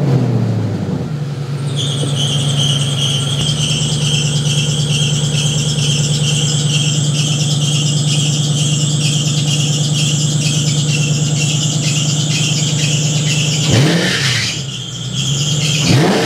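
V8 engine in a Porsche Boxster, just started, settling to idle under a hideous, pulsing drive-belt squeal. The throttle is blipped twice near the end. The slipping belt is squealing, which the owner thinks is probably from leaked power steering fluid on it.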